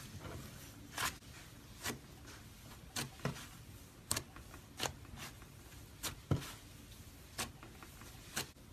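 Slime being squeezed and poked by hand, giving sharp pops about once a second, some in quick pairs.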